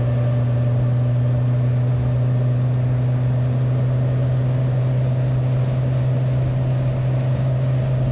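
Suzuki four-stroke outboard motor running at a steady cruising speed as the skiff planes across open water: an even, unchanging drone over a rush of water and wind.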